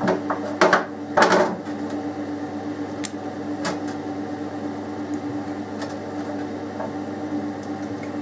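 Peeled potatoes being picked out of a glass dish in the sink and put into a pot of water, making a few knocks and clicks, the loudest within the first second and a half, over a steady hum.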